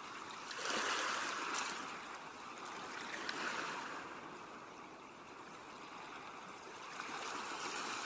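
Ocean waves washing in on the shore, one wave breaking about a second in and another building near the end.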